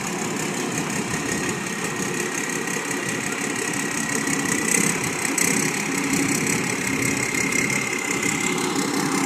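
Combine harvester's diesel engine running steadily and smoothly, with a faint whine that edges slightly higher about halfway through.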